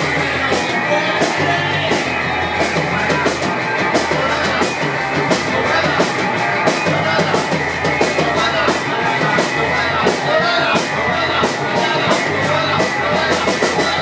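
Live rock band playing loud and steady: electric guitar and bass guitar over a drum kit.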